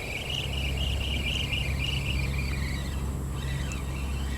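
A bird chirping in a rapid repeated run over a steady low rumble that sets in just after the start.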